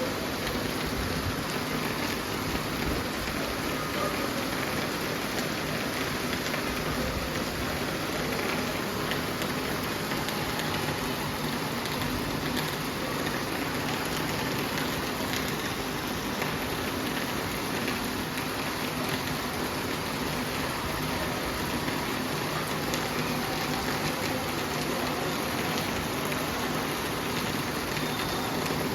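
Steady rain falling, an even hiss of drops with no let-up.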